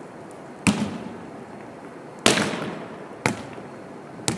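Volleyball struck and bouncing on a wooden gym floor: four sharp smacks, the second the loudest, each echoing in the gym.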